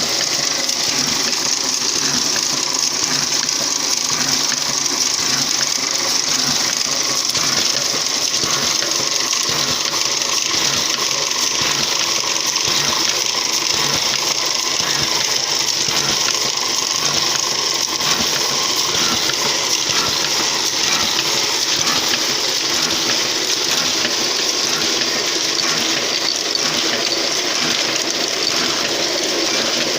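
A small machine running steadily without a break, a dense hiss with a fast, even clatter of small mechanical strokes.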